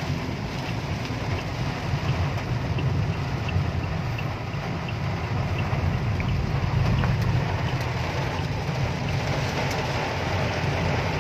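A car driving through heavy rain, heard from inside the cabin: a steady low road and engine rumble under the hiss of rain on the car.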